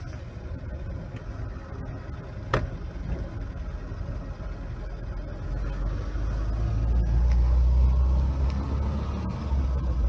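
Vehicle engine rumbling at a low pitch, growing louder about halfway through and easing off near the end, with one sharp click about two and a half seconds in.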